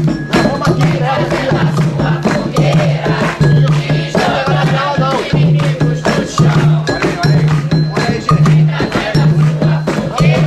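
Umbanda ritual music: hand drums beating a steady pulse with shaken rattles, and a group of voices singing a chant over them.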